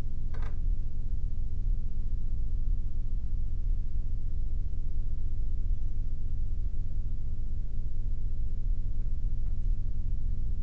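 Steady low rumble with no change in level, and a faint short click about half a second in.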